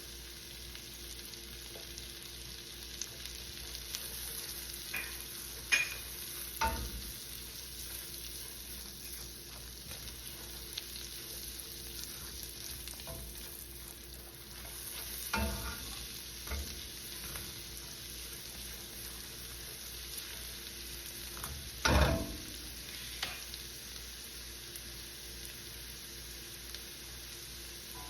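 Garlic and scallion stems sizzling steadily in melted butter in a pan while being stirred, with a utensil knocking against the pan now and then, loudest about two thirds of the way through.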